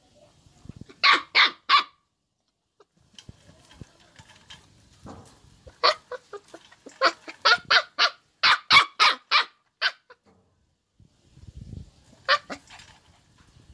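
A dog barking in short, sharp bursts: three quick barks about a second in, a longer run of about ten rapid barks in the middle, and one more bark near the end.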